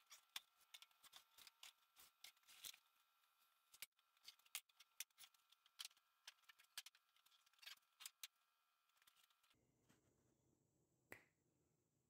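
Faint scattered clicks and knocks of scrap wood, cardboard and plastic being handled and tossed onto a pile, several a second. About two-thirds of the way through they stop and a low steady hum takes over, with one more click.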